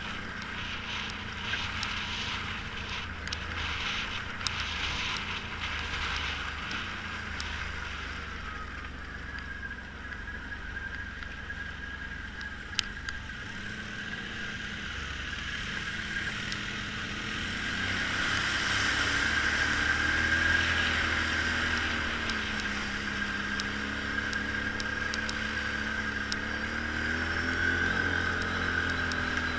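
ATV engine running while riding a rough trail. Its pitch rises and falls with the throttle in the second half, over a steady high whine. Scattered clicks and knocks come in the first half.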